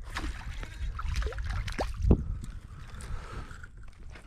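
A hooked crappie splashing at the water's surface as it is reeled in and swung up out of the water, with a loud thump about two seconds in. A low rumble runs underneath.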